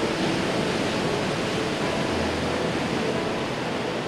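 Heavy storm surf from hurricane swell breaking and washing up over a rocky shore, a steady rush of churning water with no single crash standing out.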